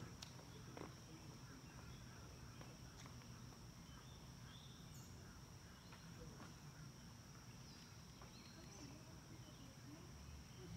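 Faint evening ambience: a steady high-pitched insect drone, such as crickets, with a few faint bird chirps.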